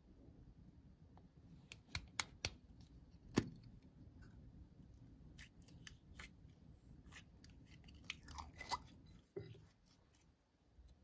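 Hands squeezing and stretching glitter slime, giving faint scattered sticky clicks and pops: a few sharp ones around two to three and a half seconds in, and a cluster of crackles near the end.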